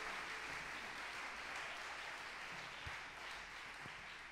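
Audience applause, gradually dying down.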